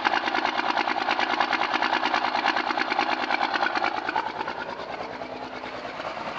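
First-generation Cummins 5.9 12-valve inline-six diesel idling roughly, with a rapid run of even firing pulses that eases somewhat about four seconds in. The rough idle began after its VE injection pump was resealed, and the cause is unknown.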